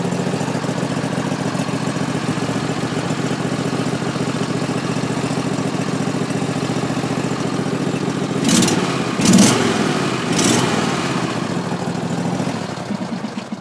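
Small tractor engine idling steadily, with good oil pressure of about 50 psi, revved up briefly three times past the middle, then dying away near the end as it is shut off.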